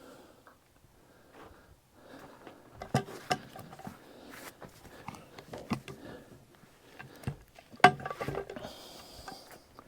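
Irregular knocks and clunks of a log being shifted on a sawmill's log deck, the loudest about eight seconds in, with a short hiss near the end.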